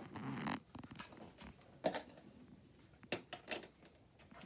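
Light handling noises from slime and toys: a short rustle at the start, then scattered small clicks and taps.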